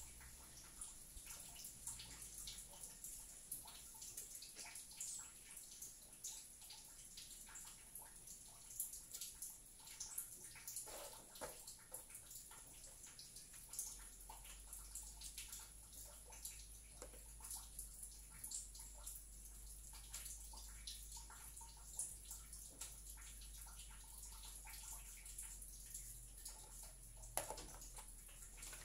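Quiet room with a steady faint hiss and scattered faint ticks. Near the end, a plastic chess piece is set down on the board with a single sharp click.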